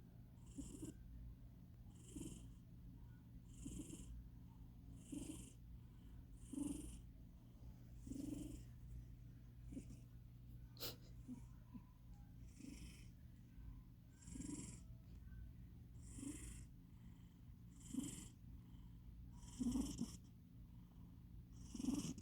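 A domestic cat snoring in its sleep, one snore about every one and a half to two seconds, each a low rasp with a hissing wheeze; the owner puts the snoring down to the cat being fat. A single sharp click sounds about halfway through.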